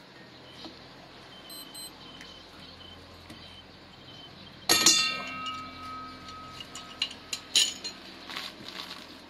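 Metal clanking on a steel diamond core drill bit and its drill rig as a wrench is worked on and off it: one sharp clank about halfway through that rings on for a couple of seconds, then a few lighter metallic clicks.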